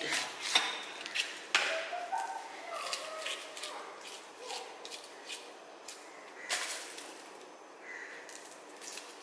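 Chef's knife cutting a red chili on a plastic cutting board: a run of irregular sharp taps and knocks, spaced out and fading in the second half.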